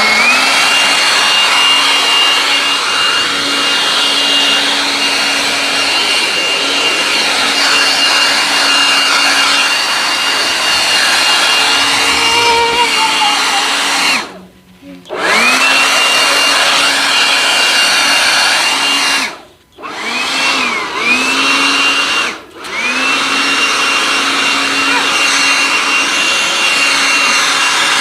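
Cordless handheld 2-in-1 leaf blower and car vacuum running, a steady high motor whine over rushing air. In the second half it cuts out briefly three times, each time winding back up to full speed.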